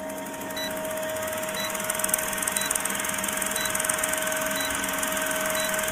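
Old film-projector countdown sound effect: a steady mechanical whirr and rattle with a held hum beneath it and a short tick about once a second.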